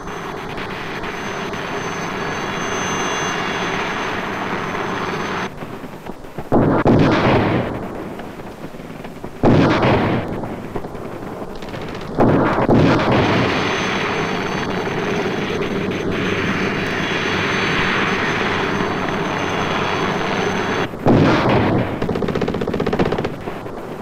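Combat sounds of a live-fire infantry exercise: sustained rattling rifle and machine-gun fire. It is broken by four heavy blasts, the first about six seconds in and the last near the end.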